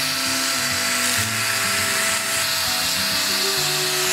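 An electric sander with a round pad running at a steady speed against a wooden board: a level motor whine over a hiss. Background music plays underneath.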